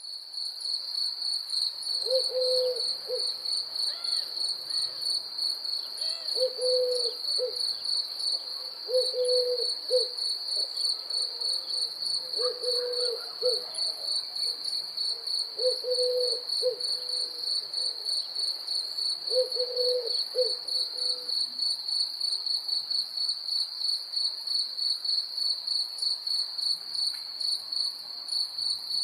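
Night insects, crickets, chirping in a steady, fast-pulsing trill, with a fainter, higher trill above it. A low call repeats every three to four seconds, each time a longer note followed by two or three short ones, and stops about two-thirds of the way through.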